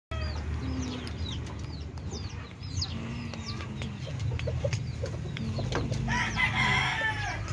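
Chickens clucking in a coop, with many quick high chirps through the first three seconds. Near the end, a rooster gives one long crow of about two seconds.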